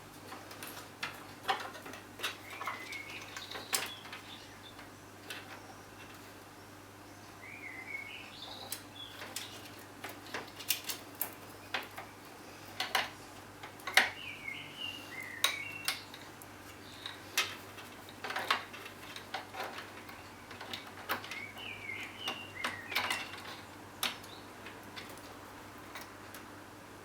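Irregular light clicks and plastic clatter of PC cables and connectors being handled and pushed onto the motherboard, with short high squeaky chirps now and then.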